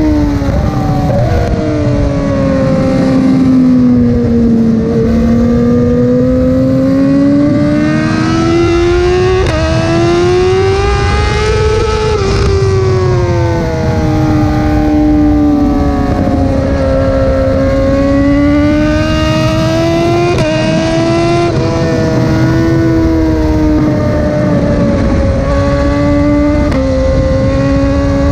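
Motorcycle engine at high revs on track, its note climbing and falling with the throttle through corners, with several sudden jumps in pitch as gears are shifted.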